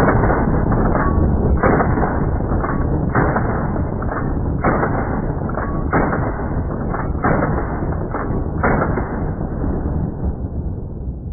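Benelli M4 semi-automatic 12-gauge shotgun firing a string of shots: about seven heavy blasts roughly a second and a half apart, with weaker bangs between them, over a continuous background that fades out near the end.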